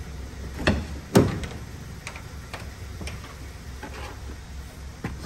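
Car door unlatched and pulled open: a sharp click from the handle, then a louder clunk about a second in, followed by a few light clicks and taps over a low steady hum.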